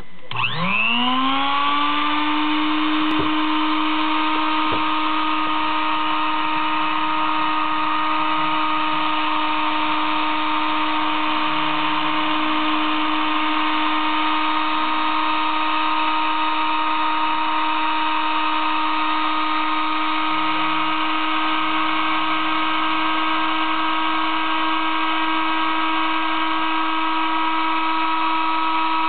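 Spindle motor of a Sable-2015 desktop CNC mill spinning up with a rising whine about half a second in, then running at steady speed as a 20-degree V engraving cutter cuts a shallow groove into acrylic plate.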